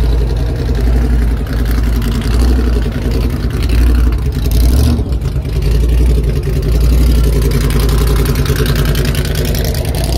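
A car engine running loudly with a fast, uneven pulsing beat, briefly dipping and picking back up about five seconds in.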